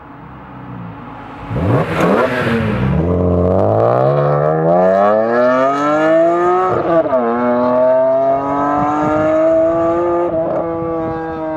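BMW E46 M3's S54 inline-six, running through a Gruppe M replica exhaust with two AR20s, passes close by about two seconds in. It then accelerates hard away with its note rising steadily, drops in pitch at a quick upshift about seven seconds in, and pulls on in the next gear.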